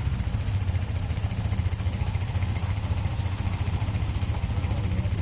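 Off-road mud-racing vehicle's engine running steadily at low revs, with a fast even pulsing.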